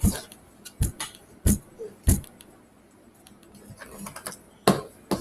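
Handling noise from Play-Doh play: a string of about six sharp taps and knocks, irregularly spaced, with fainter ticks between them.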